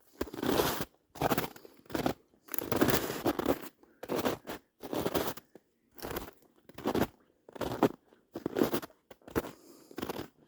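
Footsteps of a person walking through a cedar swamp, one noisy step after another at an uneven pace of about one a second.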